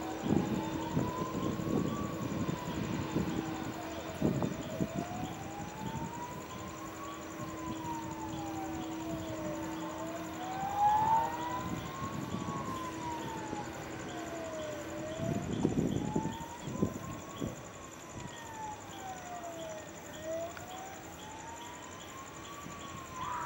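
Slow wailing siren of airport fire trucks, rising and falling about every five seconds. A steady low hum runs underneath and stops about halfway through.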